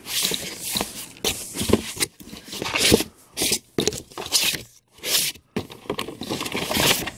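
Cardboard shipping box being opened: its flaps scraping and rubbing against each other in about half a dozen short, noisy strokes with brief gaps between.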